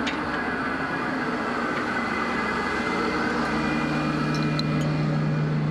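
Steady whir and hum of the International Space Station's cabin ventilation fans and equipment, with a low hum growing louder about three seconds in and a few faint clicks.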